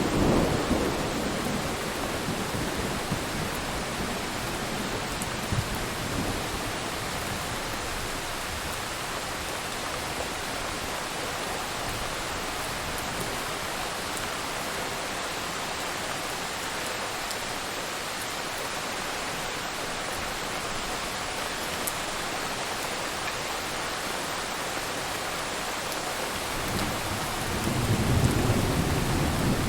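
Steady heavy rain, an even hiss of falling drops. A low rumble of thunder dies away in the first second or two, and another rumble builds near the end.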